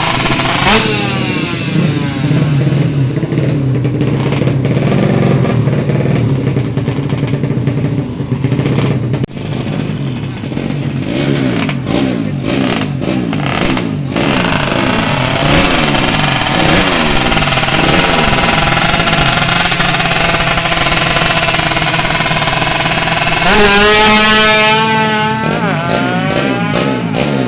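Tuned-up motorcycle engine running and being revved over and over, its pitch rising and falling, with one hard rev about three-quarters of the way through.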